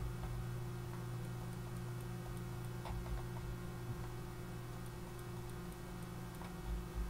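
Computer mouse clicking over and over, faint quick clicks a few tenths of a second apart with a few louder ones, over a steady low electrical hum.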